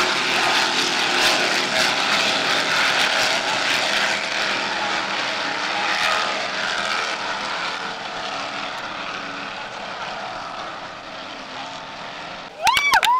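Offshore racing powerboat engines running flat out as the boats pass at speed, a steady drone that slowly fades as they pull away. Near the end a short, louder tone that rises, holds and falls cuts in.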